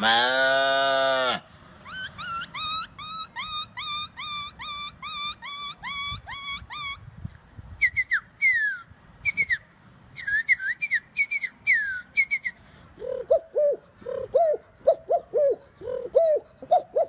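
A man imitating animals with his voice. A long drawn-out cow-like call ends about a second in. Then come quick rising whistled bird calls, about three a second, then groups of falling whistles, and near the end a lower repeated dove-like cooing.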